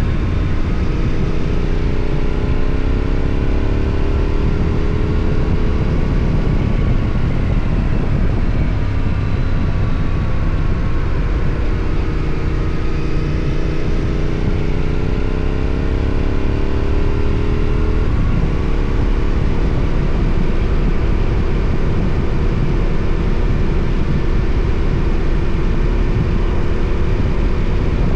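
Yamaha Ténéré 700's parallel-twin engine under way, its pitch climbing twice as the bike accelerates, dropping suddenly about eighteen seconds in at a gear change, then running steady. Heavy wind rush on the camera microphone.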